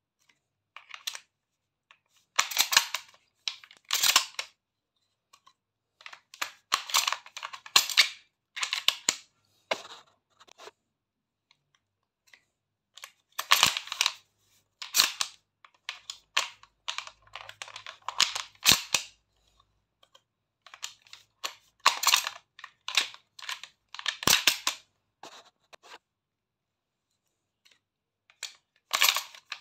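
Shotgun shells being pulled from belt caddies and pushed one after another into a shotgun's magazine tube: bursts of sharp metallic and plastic clicking, with short pauses between groups.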